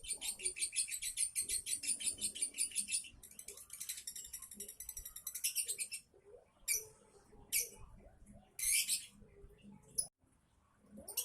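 Lovebird's rapid chattering run of high notes, then after a few seconds a handful of short separate calls. This is the 'minor' sound that keepers take as a sign the bird is nearing the konslet stage.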